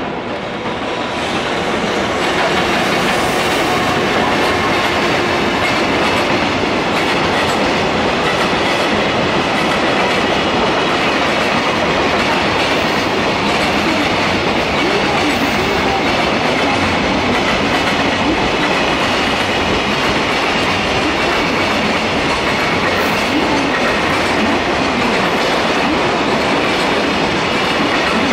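A long container freight train hauled by an electric locomotive passing by: a steady rumble of wagon wheels with a clickety-clack over the rail joints, building over the first couple of seconds and then holding.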